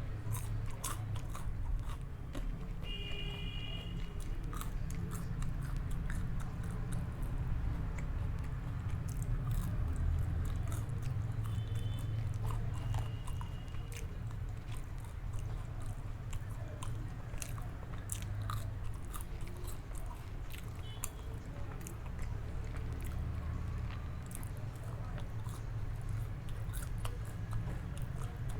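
Close-miked eating of cheesy pizza and fries: steady chewing with frequent crisp clicks and crunches from biting.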